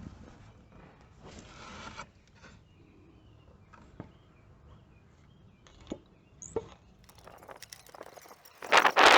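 Hand-tool and parts handling under a minivan's hood: scattered light clicks and knocks, a brief scraping rub about a second in, and louder clattering near the end.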